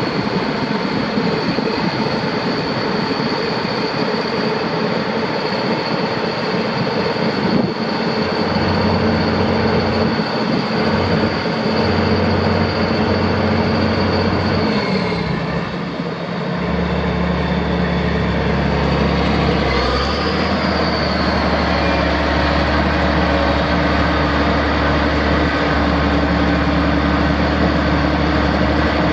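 Caterpillar C18 six-cylinder diesel engine of a Challenger MT965C 4WD tractor running, with a steady high whine over the engine note. About halfway through the engine note and the whine shift, then hold steady again.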